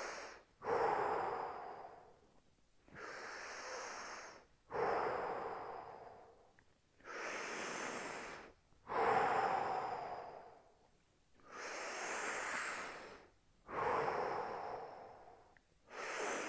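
A man taking slow, deep breaths in and out through the mouth, about four full breaths. Each inhale and exhale is a breathy rush of about two seconds, with short pauses between them, the louder ones fading away at the end.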